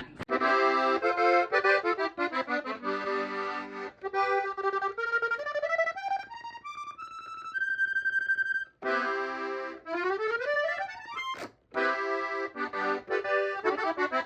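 Accordion played: chords, then a rising run of single notes that ends on a held high note, then chords again with a second quick rising run. There is a short break in the playing about two-thirds of the way through.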